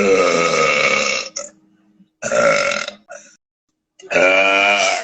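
A woman belching loudly three times, each belch lasting about a second, with short pauses between.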